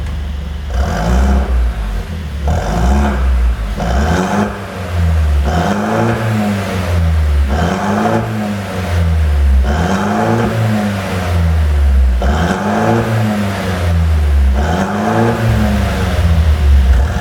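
Mercedes-Benz C200 Coupe engine revved in about eight quick blips, each rising and falling in pitch, with popping and crackling from the exhaust as the revs drop. This is the sound of a pops-and-bangs overrun tune.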